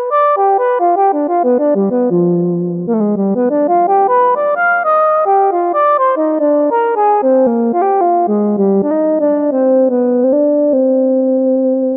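Omnisphere software synth lead patch "Gentle Soul 106 Lead", a simple Juno-106-style lead played live on a keyboard. It plays a flowing melodic solo line of stepping notes and settles on a held note near the end.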